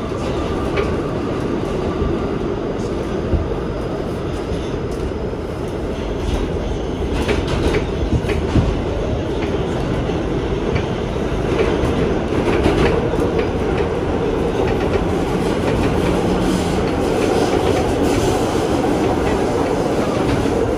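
Kawasaki R211T subway train running between stations, heard from inside the car: a steady rumble of steel wheels on rail, with irregular sharp clicks and clatters over the track. It gets slightly louder in the second half.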